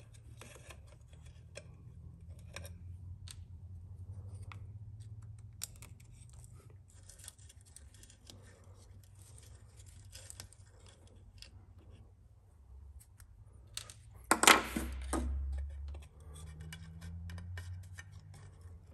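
Small screwdriver clicking and scraping as screws are backed out of an RC bulldozer's track frame, with a louder clatter about three-quarters of the way in.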